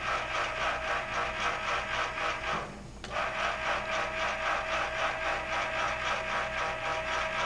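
Camera rotor running as it pans the pole-mounted cameras: a steady, rhythmically pulsing mechanical buzz. It stops briefly about three seconds in and starts again.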